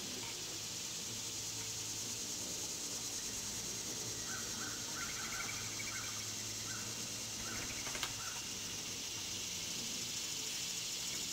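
Steady high-pitched insect drone, with a short string of bird chirps through the middle and a single sharp click about eight seconds in.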